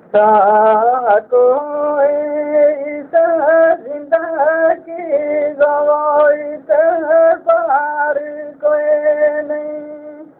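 A man singing a Gojri bait, a Gujjar folk verse, as a solo voice in a high register. He sings short phrases of long held notes with wavering ornaments, broken by brief pauses. The recording sounds thin, with no treble above the voice.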